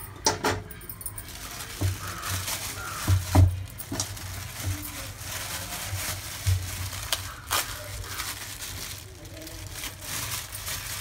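Crumbled jaggery pieces dropping and knocking into an iron kadhai: a scattering of sharp clicks and knocks, the loudest a few seconds in.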